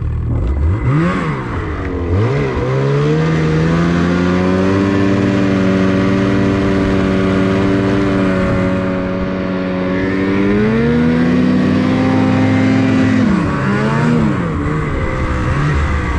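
Ski-Doo 850 two-stroke snowmobile engine revved hard in place for the 'chainsaw' cool-down, meant to throw snow up to cool an overheating engine. It blips up twice, is held at high revs for several seconds, dips briefly and rises again, then drops back near the end.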